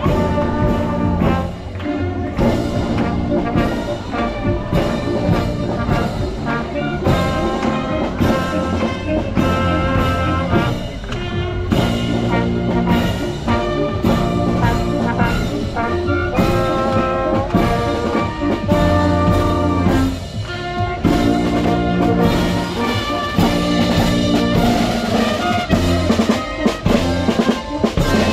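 Brass band playing, with trumpets and trombones holding notes over a steady drum beat.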